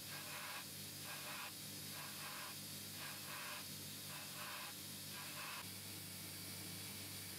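Belt grinder running with a steady motor hum while a bowie knife's steel blade is pressed to the belt in short passes, about two a second, each a brief rasping hiss. The passes stop about five and a half seconds in, leaving the motor hum.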